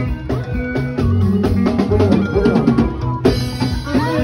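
Live band music: a drum kit keeps a steady beat with bass drum and snare over a bass line and melody.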